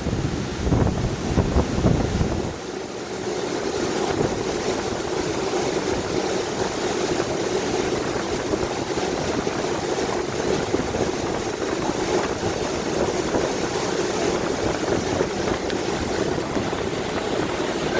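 Steady mechanical hum and hiss of running machinery, with a heavy low rumble that stops about two and a half seconds in.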